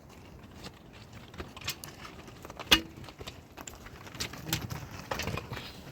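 Scattered knocks and clatter of hand building work, with one sharp knock about halfway through.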